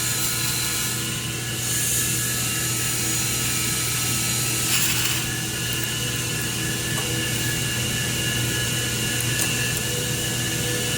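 Air-cooled handheld laser welder running, a steady hum and whine on several fixed tones with a faint hiss, and a short louder burst of hiss about five seconds in.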